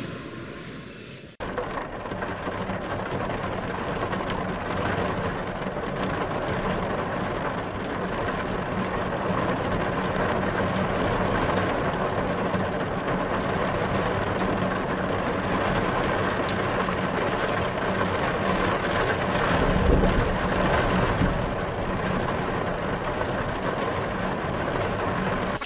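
A train sound cuts off just over a second in and gives way to a steady engine idling sound, a continuous rumble with a low hum.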